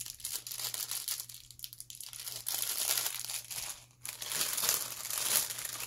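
Clear plastic packaging crinkling and rustling as hands sort through fabric flowers in their bags, in bouts with short lulls about one and a half and four seconds in.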